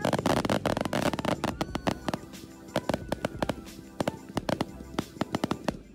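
Aerial fireworks going off: a dense burst of crackling in the first second, then a run of sharp pops and bangs. Background music plays underneath.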